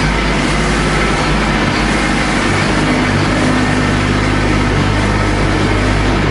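Compact tractor with a front loader, its engine running steadily as it drives across the barn floor.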